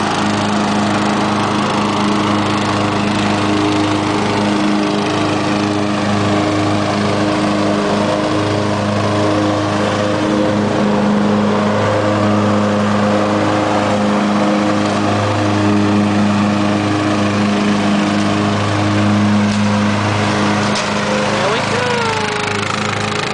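Riding lawnmower engine running at a steady speed, a constant hum that varies only slightly in level. A brief voice rises and falls over it near the end.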